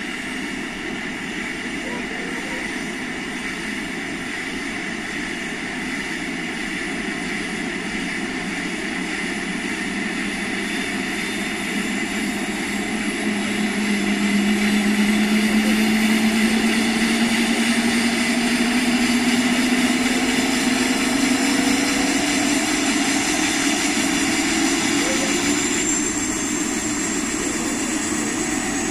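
Single-engine turbine helicopter running on the ground after start, its turbine and main rotor spooling up: a steady whine with a rising tone, getting louder from about halfway through and then holding near the end.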